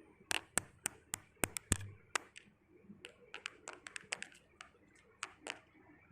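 An irregular series of sharp, light taps and clicks, thickest in the first two seconds and again from about three seconds in, with the loudest few near the start.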